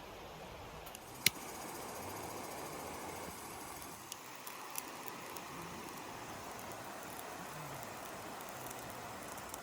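Campfire burning: a steady hiss with one sharp pop about a second in and a couple of fainter pops later.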